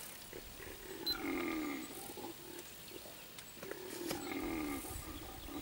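An animal calling twice, each a low, drawn-out call about a second long that falls in pitch, with a few faint clicks between.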